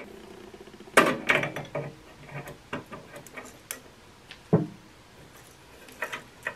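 Scattered light clicks and taps of a screwdriver and spade wire connectors being worked among the terminals inside an espresso machine's metal housing, with a duller knock about four and a half seconds in.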